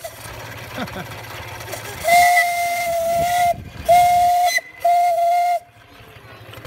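Steam whistle on a scale-model Allchin steam traction engine blowing three blasts: one long, then two short.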